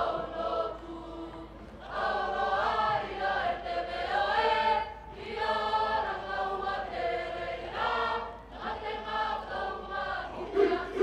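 A Cook Islands performing group singing together as a choir, in long held phrases broken by short pauses for breath, the girls' voices to the fore.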